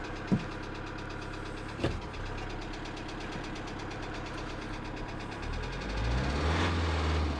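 Kia Sedona 2.9 CRDi four-cylinder diesel idling with a knock, then revved up about five seconds in. The mechanic suspects a jumped or slack timing chain, with a crankshaft/camshaft position correlation code (P0016). Two sharp clicks sound in the first two seconds.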